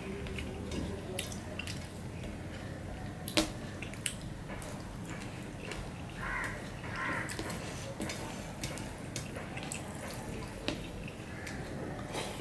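Fingers kneading cooked rice into a wet curry on a stainless steel plate: wet squishing with scattered sharp clicks of fingertips against the metal, the sharpest about three and a half seconds in.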